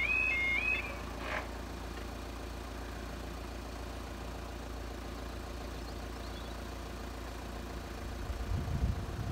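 Two-tone Yodalarm level-crossing alarm warbling, cutting off about a second in as the barriers finish lowering, followed by a single soft knock. Then a steady low rumble, with a few irregular low thumps near the end.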